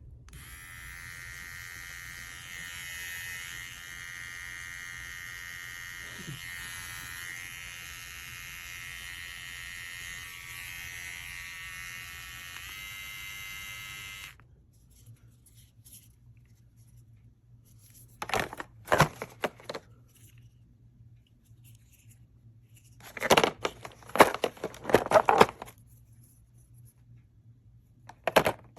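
Small electric motor of a cordless pet grooming tool running with a steady high whine for about fourteen seconds, then switched off. Afterwards come a few short bursts of rustling, crinkling noise.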